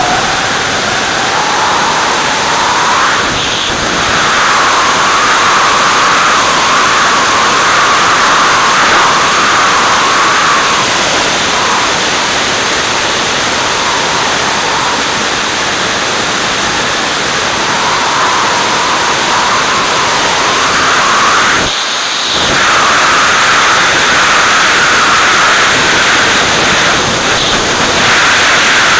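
Steady, loud rush of wind and engine noise from an aircraft in flight, heard from a wing-mounted camera, with a wavering whine riding on the hiss. The sound drops briefly twice, about three and a half seconds in and again just past twenty seconds.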